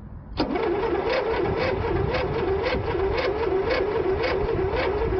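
Electric starter cranking a Simplicity lawn tractor's twin-cylinder engine, which turns over without firing. The starter's whine rises and falls about twice a second as it slows against each compression stroke. The cranking is slow and uneven; the owners take this as one cylinder having good compression and the other low.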